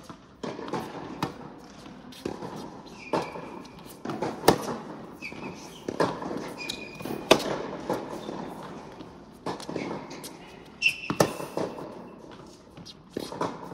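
Tennis rally on an indoor hard court: a tennis ball being struck by rackets and bouncing, a run of sharp hits that echo in the hall, mixed with short shoe squeaks on the court surface.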